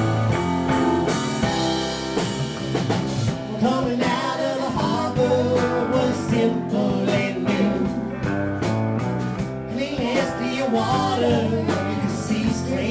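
Rock music with guitar and drum kit and a steady beat.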